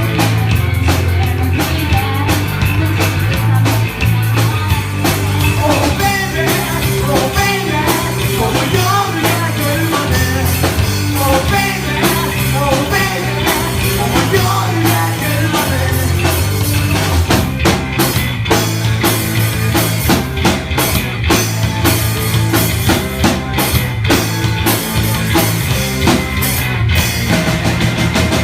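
A rock band playing live, with a drum kit keeping a steady beat under a strong electric bass line.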